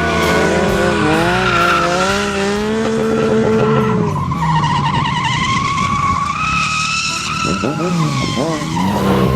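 Vehicle engines revving up and down while tyres squeal and skid in long, wavering screeches, typical of stunt riders doing burnouts and slides.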